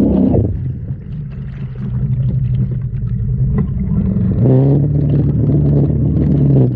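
Engine of an off-road vehicle driven through a shallow river, easing off near the start, running steadily lower, then revving up about four and a half seconds in and holding at a higher pitch, with water splashing and rushing past.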